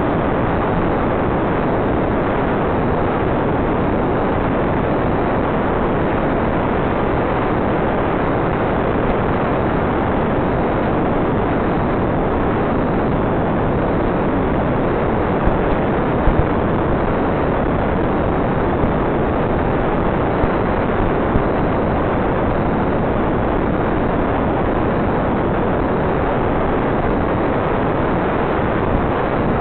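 Steady, even hiss of static on the analog FPV video downlink, with no motor or propeller tone in it. A few faint clicks come through between about halfway and two-thirds of the way in.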